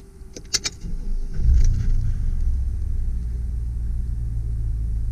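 A few short clicks, then the 2003 GMC Sierra 2500HD's 6.0-litre gasoline V8 starts: it catches about a second and a half in, flares briefly, and settles into a steady low idle. It starts up good.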